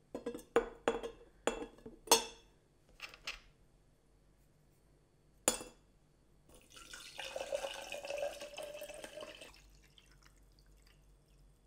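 Rusty steel chisel and gouge clinking against a drinking glass as they are stood in it: several sharp clinks in the first few seconds and one more a couple of seconds later. Then water is poured from a plastic bottle onto citric acid powder in the glass for about three seconds, to make a rust-removal bath; the pour's pitch rises slightly as the glass fills.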